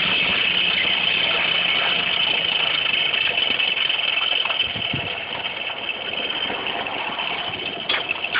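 Blacksmith's forge running with a steady, even rushing noise. Near the end, quick scraping strokes start, a few a second, as scale is brushed off the hot iron.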